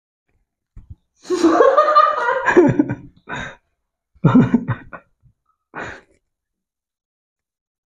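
Young men laughing: a long stretch of laughter starting about a second in, then a few shorter bursts of laughter and breathy voice sounds.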